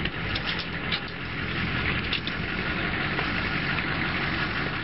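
Old pickup truck's engine running steadily, with a few short knocks over it.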